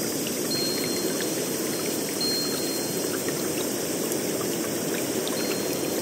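Steady rushing of flowing water, like a small stream or garden water feature, with faint scattered drips or splashes. Thin high tones come and go faintly above it.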